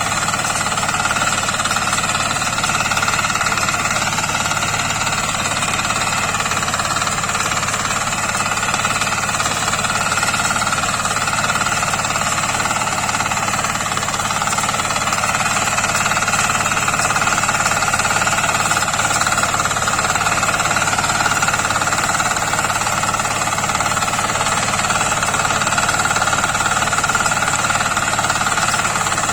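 Wheat-harvesting machine running steadily in the field: a continuous loud mechanical din of engine and moving parts, with steady high whining tones over it.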